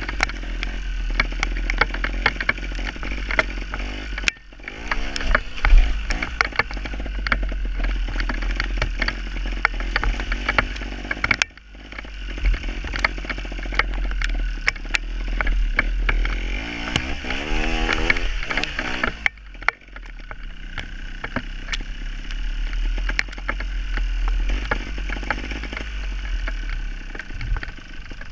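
Gas Gas TXT270 two-stroke trials motorcycle engine running under the rider, revving up in rising pitch about five seconds in and again near the middle. A constant low rumble and many sharp knocks run underneath.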